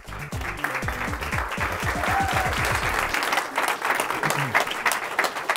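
Audience applauding, with steady clapping throughout. An electronic music track with a low beat plays under the applause and stops about three seconds in.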